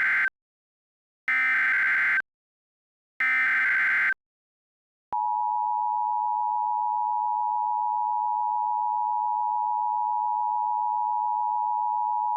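Emergency Alert System header tones: the end of one digital SAME data burst, then two more bursts, each about a second long with about a second between them. After a second of silence comes the EAS attention signal, a steady two-tone alarm of 853 and 960 Hz, starting about five seconds in.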